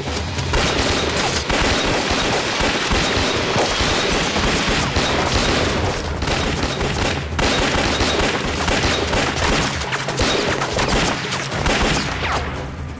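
Dense pistol gunfire from several guns, shot after shot starting about half a second in, with a couple of brief lulls, over background music.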